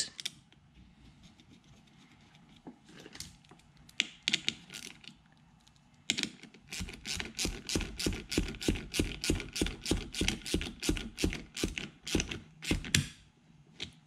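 Hand ratchet clicking quickly and evenly, about four clicks a second, as it turns the seat belt anchor screw in, starting about six seconds in and stopping shortly before the end. Before that, a few scattered clicks and knocks of parts being handled.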